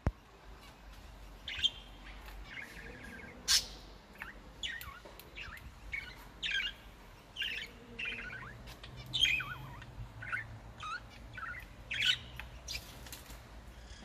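Small cage birds chirping: a steady run of short, sharp calls, about one to two a second, many of them sliding down in pitch.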